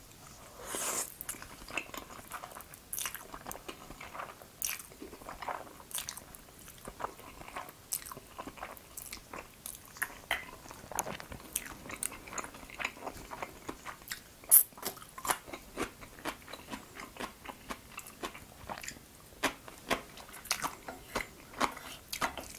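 Close-miked eating: a slurp of black bean noodles about a second in, then wet chewing with many small mouth clicks and crisp crunches of raw cucumber strips, the loudest a single sharp crunch about two-thirds of the way through.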